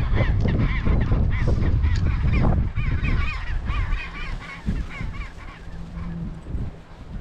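Chinstrap penguins calling: a quick, overlapping run of short, repeated rising-and-falling honking calls. A low rumble sits under them and fades out about three seconds in.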